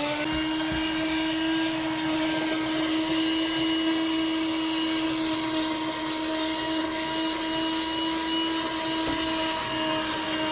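Corded car vacuum cleaner, plugged into the car's dashboard socket, running with its seat-cleaning nozzle fitted. The motor settles to full speed at the start and holds a steady whine over the rush of suction air.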